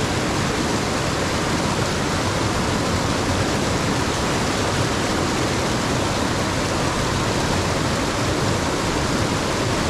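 Rushing water of a mountain stream, an even, unbroken hiss.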